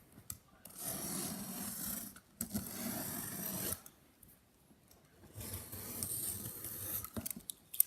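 A sealed trading-card box being opened by hand: rasping, rubbing scrapes of cardboard and packaging in three stretches, with a quiet pause of about a second and a half between the second and third.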